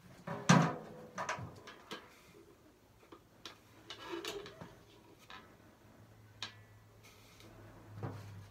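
Berimbau being handled as its wooden bow is bent against the wire, with the gourd resonator attached: irregular knocks and clicks of wood, wire and gourd. The loudest knock comes about half a second in and rings briefly.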